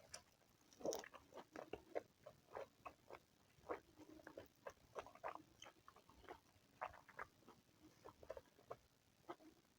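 Close-miked chewing: a person eating, heard as soft, irregular mouth clicks and smacks, several a second, with a louder one about a second in.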